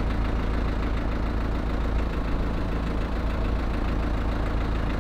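A truck's engine idling steadily with a low, even rumble.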